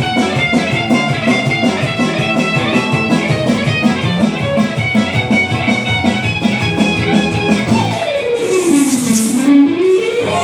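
Background music: a guitar-led track with a steady beat. Near the end a note slides down in pitch and back up, under a brief hiss.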